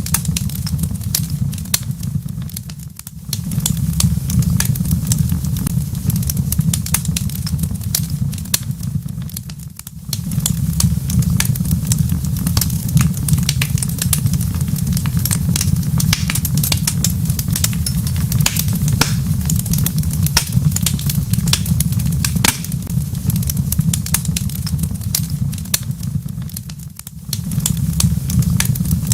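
Wood fire crackling in a fireplace, with frequent irregular sharp pops and snaps over a steady low rumble. The rumble drops away briefly three times.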